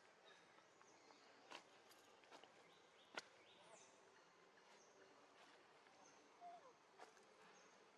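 Near silence: faint forest ambience with scattered soft clicks and a few brief, faint calls. The loudest click comes about three seconds in.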